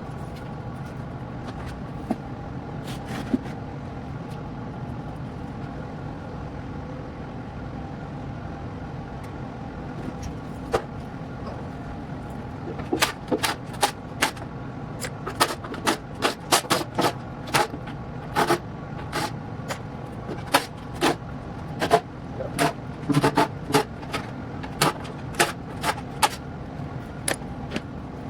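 Hand tools working on engine parts during a big-block teardown: irregular sharp clicks and knocks, sparse at first and coming thick and fast from about halfway through, over a steady machine hum.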